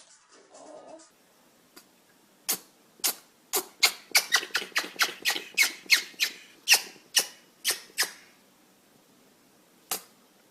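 An animal sneezing over and over in a quick run of short, sharp sneezes, about two to three a second for some five seconds, with one more sneeze near the end.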